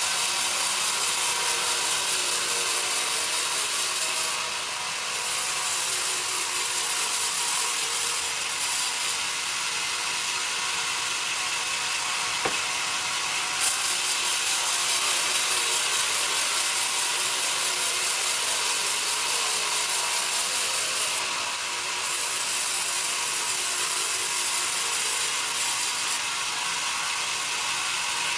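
Sawmill band saw running and cutting through a young pine cant: a steady, hissing sawing noise that dips briefly twice, with a couple of sharp clicks near the middle.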